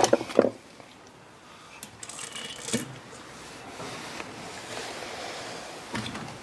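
Metal clinks and knocks from a Honda CRF250 engine's bottom end being handled, then a faint, steady rough rasp as the crankshaft is turned by hand: the crank bearings are worn and notchy.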